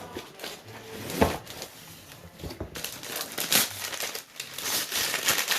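Packaging crinkling and rustling as a gift box's contents are handled and unwrapped, with a sharp tap about a second in; the crinkling gets denser about halfway through.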